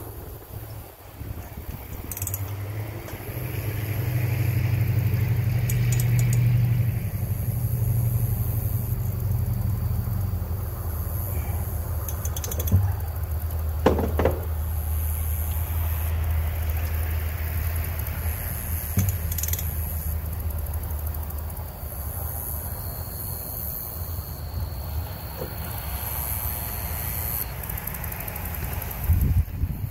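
A motor running steadily with a low hum that drops in pitch after a few seconds and dies away about two-thirds through, with a few sharp metallic clinks of tools.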